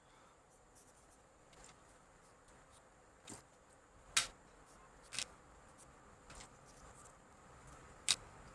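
A damp cleaning cloth rubbing over a plastic keyboard case, with four sharp clacks as the case is handled; the clacks about four seconds in and near the end are the loudest.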